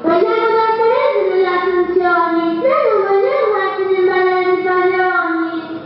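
A child's voice singing a slow melody of long held notes that glide from one pitch to the next.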